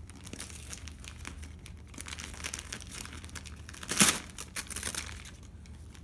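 Gift wrapping crinkling and rustling as a child pulls a present open by hand, with the loudest crackling rustle about four seconds in.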